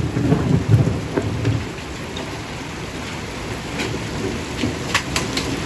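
Heavy rain pounding steadily on a porch roof, with a low rumble in the first second and a half. Large hailstones strike the roof as sharp single knocks, several in the last two seconds.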